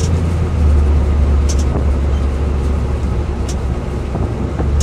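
Steady low drone of a car's engine and tyres on the road, heard from inside the cabin while driving, with two faint ticks about a second and a half and three and a half seconds in.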